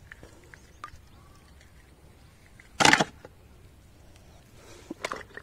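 A short burst of water splashing over a plastic toy about three seconds in, amid a few faint handling clicks.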